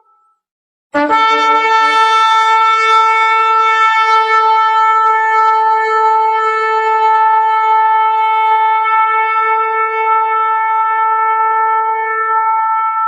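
Shofar blown: after a short silence, one long steady blast starts about a second in. It opens with a brief lower note, then settles and is held at one pitch for over ten seconds.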